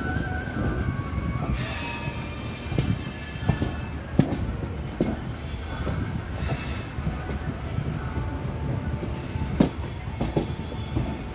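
Passenger coach wheels rolling over the track as an Indian Railways express train arrives at a station, heard from the coach doorway. A steady rumble is broken by a handful of sharp clicks as the wheels cross rail joints and points, and a brief faint wheel squeal comes near the start.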